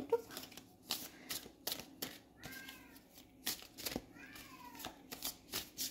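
A tomcat meows twice, about two and a half and four seconds in, the second call falling in pitch. Between the meows come the sharp clicks of a deck of tarot cards being shuffled by hand.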